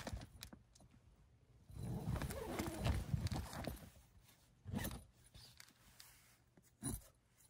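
Intermittent rustling and knocking in a few irregular bursts, the longest about two to three and a half seconds in, with quieter gaps between: handling and movement noise of someone shifting about and settling in.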